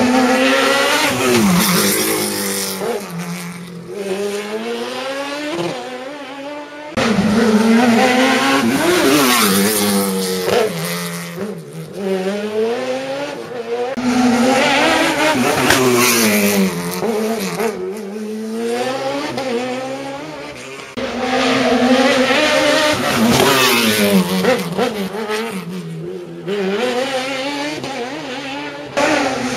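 Race car engines revving high and dropping again and again as the cars brake and accelerate through a slalom of cones. The sound comes in short pieces about seven seconds long, each cut off abruptly.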